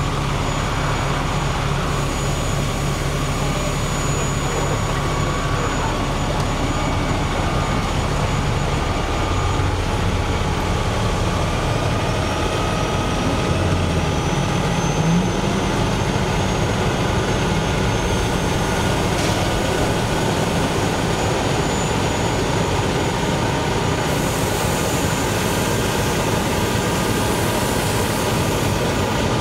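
Steady loud rumbling roar: a heavy engine running, mixed with the noise of a car burning.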